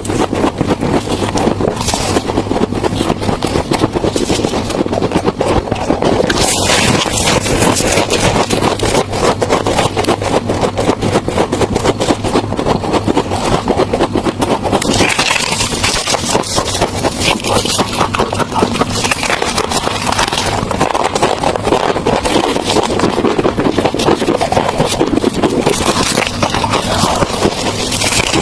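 Refrigerator freezer frost ice being scraped and crunched close to the microphone: a dense, continuous run of crackling clicks.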